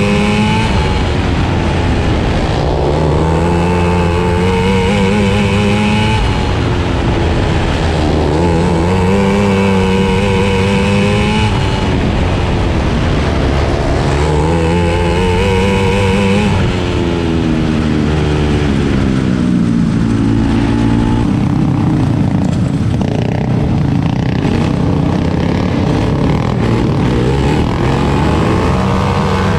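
450cc four-stroke single-cylinder outlaw kart engine at racing speed, heard onboard: the revs climb along each straight and drop off into each turn, about every six seconds. In the last several seconds the engine note is less even, with other karts running close by.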